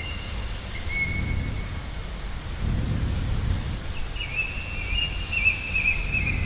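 Wind gusting in a low rumble, with bird calls over it: a run of about a dozen quick high chirps, then a wavering whistle.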